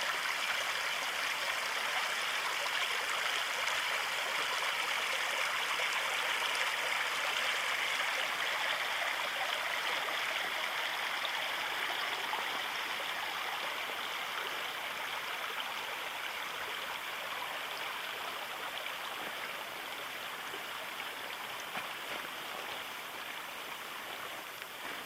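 Steady rushing of a mountain stream, slowly growing fainter over the second half.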